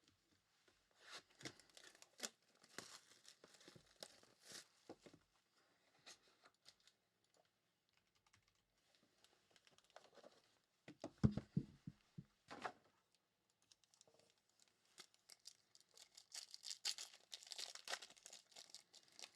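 Trading-card packaging and cards being handled: faint crinkling, tearing and clicking as packs are opened and cards shuffled. There is a louder cluster of knocks about two-thirds of the way in and denser rustling near the end.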